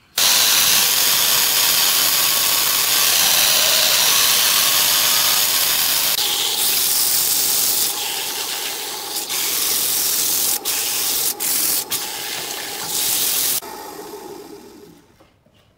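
Sandpaper held by hand against a segmented wooden vase spinning on a wood lathe: a loud, steady hiss with a few brief breaks as the contact lifts, fading out near the end.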